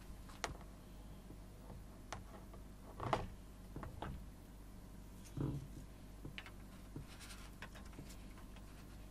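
Scattered clicks and light knocks of rubber electronic cymbal pads and metal rack hardware being handled and fitted onto a cymbal post. The heaviest knocks come about three seconds and five and a half seconds in.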